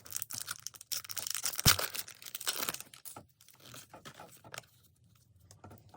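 Foil wrapper of a Pokémon booster pack being torn open and crinkled: dense crackling for about three seconds with one sharp snap partway through, then fainter, scattered rustling.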